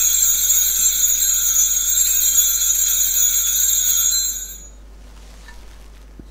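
Altar bells ringing as the chalice is raised at the consecration, a bright, continuous jingling ring that stops about four and a half seconds in.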